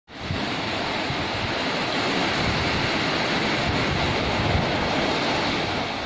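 Small ocean waves breaking and washing up a sandy beach: a steady wash of surf that fades in at the very start, with low wind rumble on the microphone underneath.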